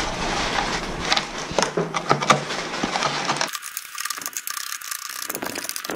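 Kitchen knife chopping bacon on a white cutting board: an irregular run of quick taps and clicks as the blade cuts through and strikes the board.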